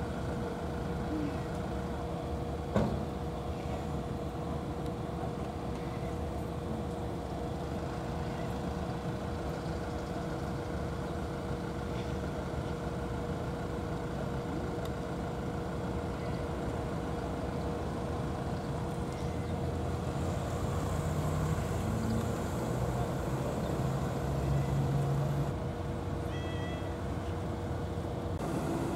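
Steady low mechanical rumble with a constant hum, growing louder for a few seconds about twenty seconds in; the hum stops just before the end.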